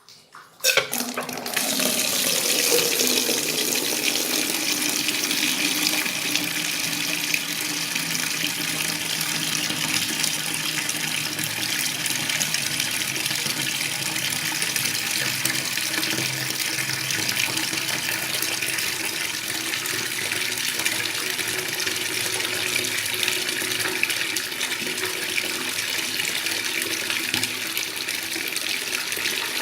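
Water running steadily from a bathroom tap, starting abruptly about a second in and going on evenly.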